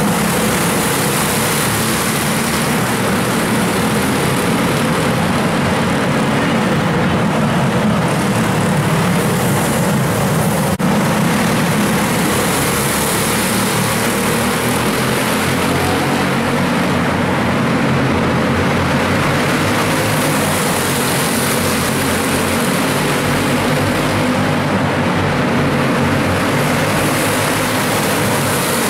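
A pack of racing kart engines running hard around an indoor oval, a dense buzzing drone in a large hall. It swells each time the pack comes past, about every 7 seconds.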